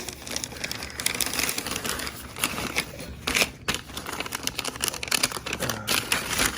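Packing material being unwrapped by hand: irregular rustling and crinkling with many small clicks and snaps.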